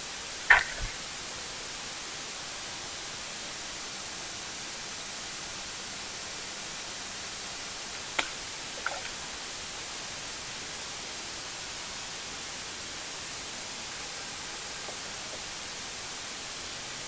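Steady hiss, broken by one sharp knock about half a second in and two lighter clicks around eight and nine seconds.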